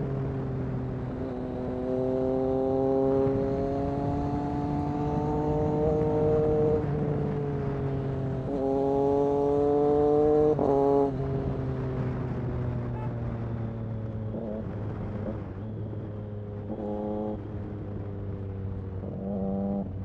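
Triumph Street Triple RS 765's three-cylinder engine through an SC Project S1 exhaust, heard from the rider's seat. It pulls hard twice with the pitch climbing, and the second pull is the loudest. It then drops off to a lower running note with a few short bursts of throttle near the end.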